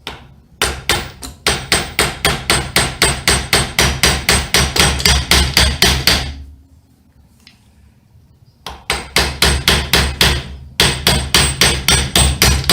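Rapid light metal-on-metal hammer taps, about five a second, driving a new ball bearing onto an angle grinder's armature shaft by striking its inner race. One long run of tapping, a pause of about two seconds, then two more short runs.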